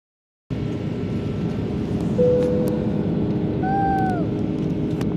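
Steady airliner cabin noise, the low rush of the engines and airflow, starting about half a second in. Two brief held tones sound over it, about two and three and a half seconds in, the second higher and dropping at its end.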